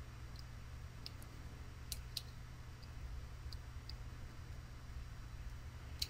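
Faint, irregular light clicks of a metal flat file being pushed into a 3D-printed plastic battery slot against its wire contacts, flattening the wire to loosen the fit, over a steady low hum.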